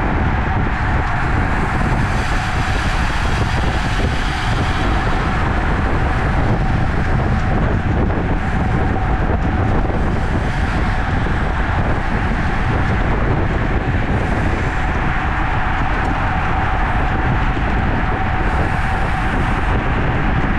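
Wind buffeting the microphone and the rolling tyre and road noise of a road bike at racing speed, steady throughout, with a faint steady hum running underneath.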